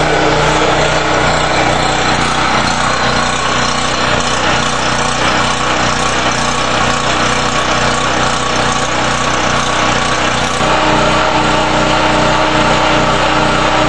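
Champion 4000-watt portable generator's engine running steadily just after a cold start. About ten and a half seconds in, its tone shifts slightly and it gets a little louder.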